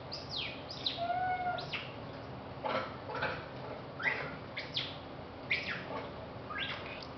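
Short, high chirping calls repeating every half second to a second or so, each one falling quickly in pitch, with a brief held whistle-like tone about a second in.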